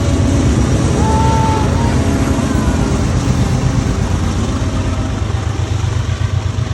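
BNSF freight train passing close by: a loud, steady low rumble with rapid clatter of wheels over the rails, and a short high squeal about a second in.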